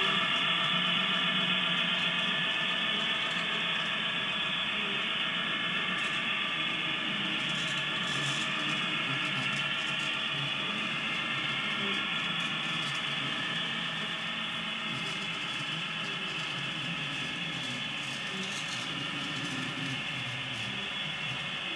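HO scale model freight train running past on its track: a steady whir of the locomotives' motors and the rumble of many wheels on rail, slowly getting quieter.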